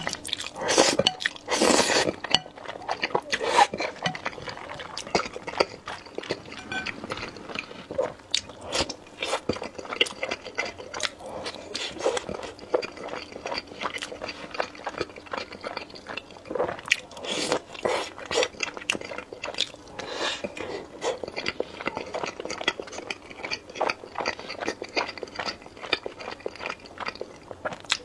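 Close-up eating sounds: noodles in thick sauce slurped loudly at the start, then steady chewing with many wet mouth clicks as pieces of a chocolate-coated bun are bitten and chewed.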